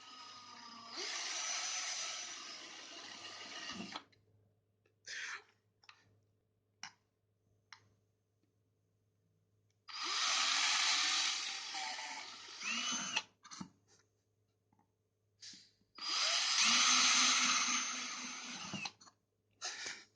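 Small electric drill boring holes in a printed circuit board: three runs of a few seconds each of high-pitched whirring, with short brief spins of the motor between them.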